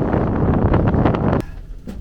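Strong gale-force wind buffeting the microphone, a loud rushing roar that cuts off abruptly about a second and a half in, followed by a much quieter stretch with a couple of faint knocks.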